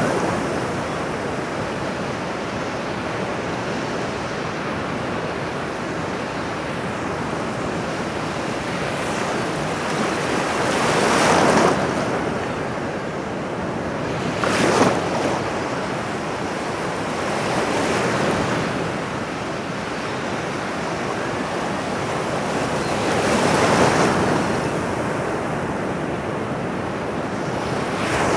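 Ocean waves washing in on a shore: a steady surf wash that swells and ebbs, with waves breaking louder about 11 s, 15 s and 24 s in.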